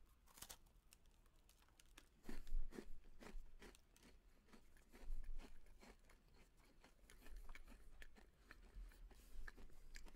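A person biting and chewing a crispy Chips Ahoy Chunky coconut chocolate chip cookie right in front of the microphone: a run of short crisp crunches, loudest a couple of seconds in and again around five seconds in.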